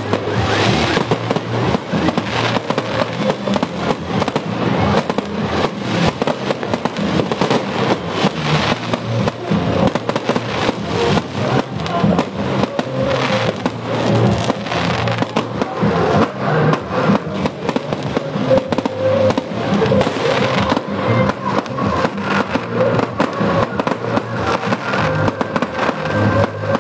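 Fireworks going off in a dense, continuous barrage of bangs and crackles, with no pause throughout.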